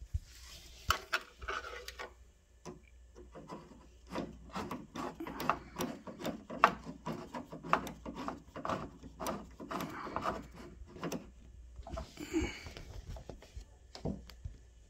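Torx screwdriver turning the key cylinder's retaining screw back into a steel car door: a dense run of short, irregular clicks and scraping in the middle stretch, with a few scattered clicks around it.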